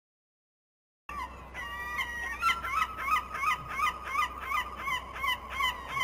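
Gulls calling: a fast run of short, repeated, downward-bending calls, about two or three a second, starting abruptly about a second in.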